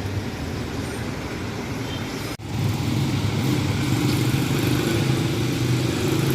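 Street traffic noise with a motor vehicle engine running steadily. About two seconds in, the sound breaks off for an instant, then comes back louder with the engine's low hum to the fore.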